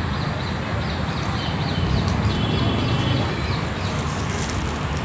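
Outdoor park sound: a steady low rumble with small birds chirping over it in quick repeated high notes that die away after about three and a half seconds.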